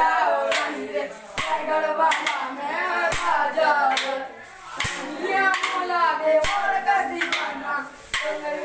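Boys singing a danda nach stick-dance song in chorus while striking wooden sticks together in time, giving sharp clacks roughly every half second to a second.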